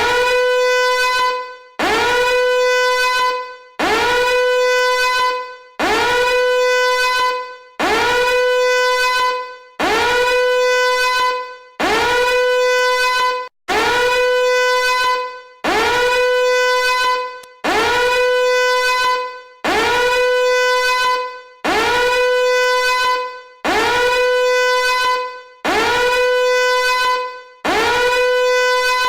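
A harsh, horn-like tone repeated about every two seconds, some fifteen times. Each blast swoops up at the start, holds steady for about a second and a half, then fades.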